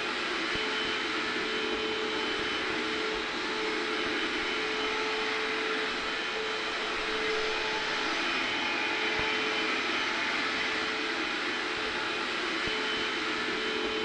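A hair dryer blows steadily with a vacuum cleaner running faintly underneath. It is an even, unchanging rush of air with a constant motor hum, used as white noise.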